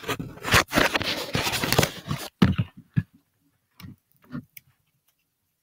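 Handling noise close to the microphone: a hand rubbing and scraping against the recording device for about two and a half seconds, followed by a few light, separate taps and knocks.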